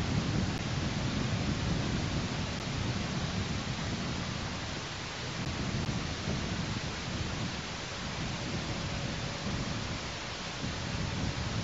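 Wind on a nest camera's outdoor microphone: a steady hiss with a low rumble that gusts up and down.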